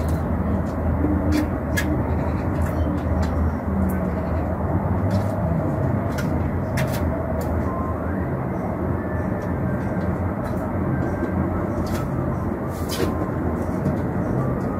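Steady outdoor rumble of distant traffic, with occasional light clicks.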